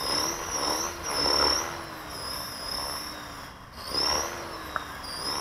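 Small battery-powered radio-controlled helicopter, held up by hand, running its motor and rotor at throttle with a high whine whose pitch wavers, dips briefly about three and a half seconds in, then climbs again. It seems to lack power.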